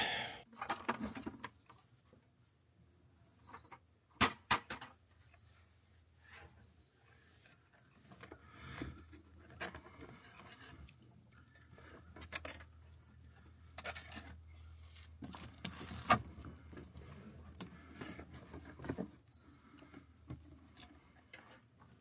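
Scattered faint clicks and knocks from hands working wire and small tools, the sharpest about four seconds in and again near sixteen seconds. Under them runs a steady high chirring of insects.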